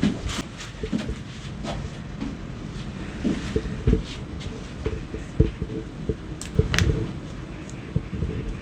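Soft knocks, thumps and clicks from a patient being handled during a chiropractic spinal adjustment, with a couple of sharp cracks about six and a half seconds in.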